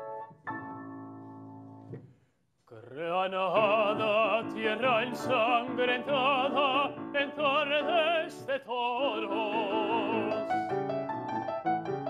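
Grand piano accompaniment: a chord that dies away, a brief silence about two seconds in, then a lyric tenor singing operatically with strong vibrato over the piano.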